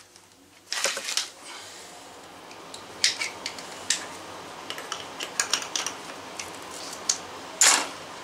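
Hands handling small PVC fittings and PVC primer and cement cans on cardboard: scattered clicks and taps, with two louder scuffs, one about a second in and one near the end.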